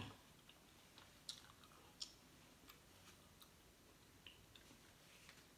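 Faint chewing with a few soft, sharp mouth clicks.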